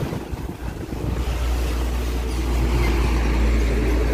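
Steady low rumble of a vehicle engine, growing louder about a second in, with wind buffeting the microphone.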